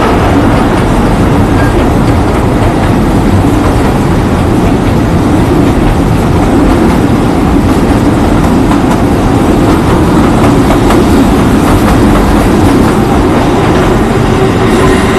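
Kurobe Gorge Railway narrow-gauge passenger train running, heard from inside the carriage at the open window: a loud, steady rumble of wheels on rail with clickety-clack, and a faint steady tone coming in near the end.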